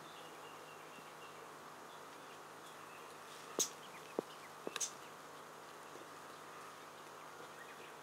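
Japanese bush warbler giving two short, harsh 'chak' contact calls a little past the middle, over a steady buzz of insects. A couple of fainter clicks fall between them.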